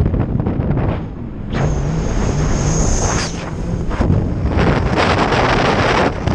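Jet ski engine running at speed, buried under heavy wind buffeting on the microphone that surges and eases in gusts.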